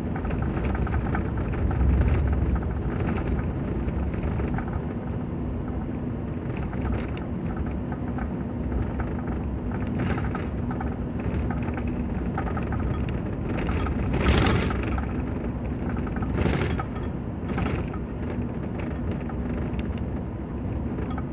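Pickup truck driving at road speed, heard from inside the cab: a steady rumble of engine and tyres with a low hum. About two-thirds of the way through comes a brief louder rush, followed by two smaller ones.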